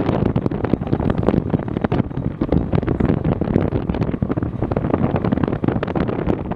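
Wind buffeting the microphone in loud, gusty surges over the low rumble of a moving car.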